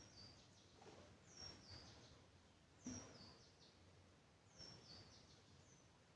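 Faint bird calling in the background: a short, high two-note call, the second note lower, repeated about every second and a half over near silence.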